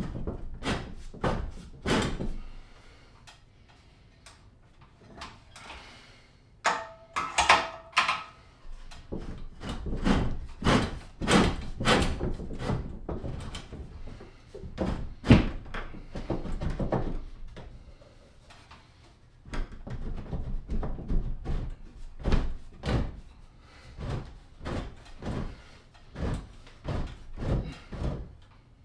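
Irregular knocks, bumps and thuds as a wooden clamp rack is handled and fitted up against the ceiling. A brief squeal comes about seven seconds in.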